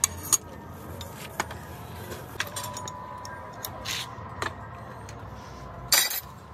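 Metal gearbox parts and hand tools clinking and tapping during transmission assembly: scattered sharp clicks and knocks, with one louder, brief clatter near the end.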